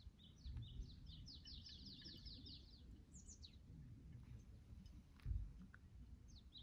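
A small songbird singing faintly: a quick run of short, falling, high notes, with a few more notes after it and a new run starting near the end. A dull low thump comes a little past the middle.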